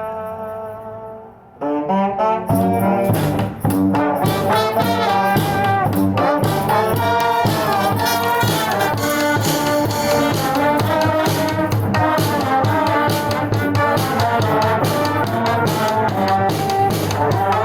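Street brass band playing live: a held horn chord dies away over the first second and a half, then the whole band comes in together with horns over a steady drum beat.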